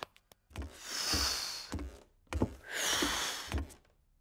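A child's voice in a cartoon blowing air through pursed lips in two long breathy puffs, each starting with a soft lip pop. No whistle tone comes out: a failed attempt to whistle.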